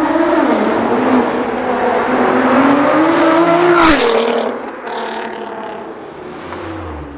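Sports car accelerating away on a loud exhaust, its engine note climbing for about four seconds. Then comes a sharp crack, the note drops, and the car fades into the distance.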